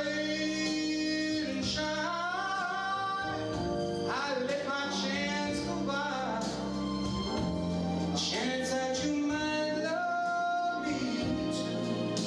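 Male vocalist singing a ballad into a handheld microphone over instrumental accompaniment, with long held and sliding notes.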